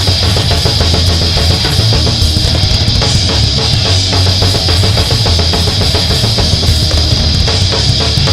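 Heavy metal band recording: drum kit with rapid strokes, bass and electric guitar playing loud and dense without a break.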